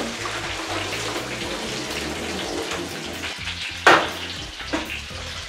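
Water being poured off a pot of boiled potatoes over the steady sizzle of food frying in pans, then a sharp clank about four seconds in and a lighter knock just after, as the pot goes back down.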